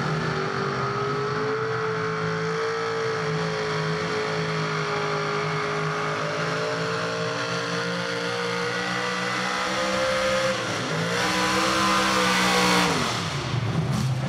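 Mini two-wheel-drive pulling truck's engine held at high revs under load as it drags the pulling sled down the track, its pitch creeping slowly upward. About ten seconds in the engine dips, then surges higher and louder, and near the end the revs drop sharply as the throttle comes off.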